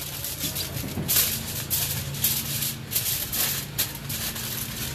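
Aluminium foil crinkling and rustling in irregular bursts as it is folded around a brisket for the wrap, over a steady low hum.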